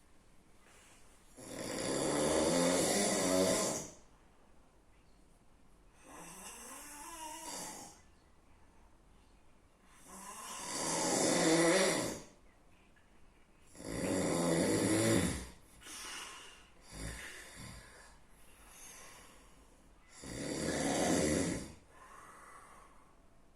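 A sleeping person snoring heavily: four loud snores of about two seconds each, with quieter breaths between them.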